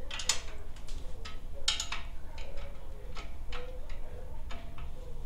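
Ratchet wrench clicking in short, uneven runs as a muffler mounting bolt on a Harley-Davidson Dyna is loosened, with small metal clicks and clinks.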